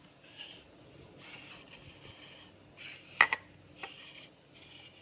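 A white plate being slid and turned on a stone countertop: several short scraping rubs, with one sharp knock a little after three seconds in.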